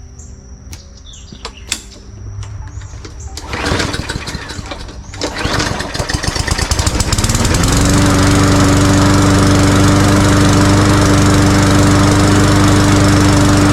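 Hyper Tough 20-inch walk-behind lawn mower engine being started: a burst of noise a few seconds in, then the engine catches, speeds up and runs at a steady speed. It now keeps running on its own after its plastic carburetor was cleaned, where before it only ran on starting fluid.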